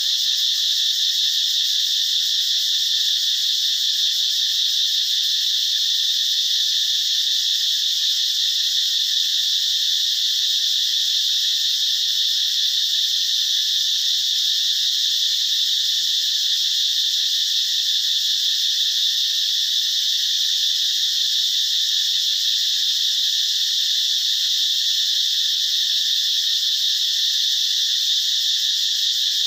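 A loud, steady insect chorus: a dense high buzz that keeps on without a break.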